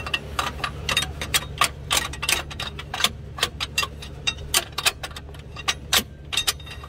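Pry bar clicking and clinking against the alternator and its mounting bracket as the alternator is levered out of its mount: irregular sharp metal clicks, a few a second, over a steady low hum.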